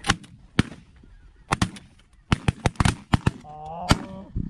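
Several shotguns fired in a volley at waterfowl over the decoy spread, about eleven shots in all, some in quick pairs and runs. A short honking call sounds about four seconds in.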